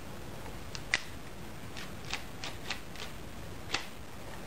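A 12-gauge shell pushed through the loading port into the magazine tube of a semi-automatic shotgun: a sharp click about a second in, followed by a handful of lighter clicks of the shell and the gun's loading parts.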